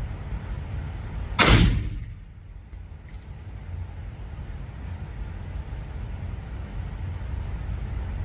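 A single suppressed gunshot about a second and a half in, followed by a few light metallic clinks over the next two seconds, all over a steady low rumble.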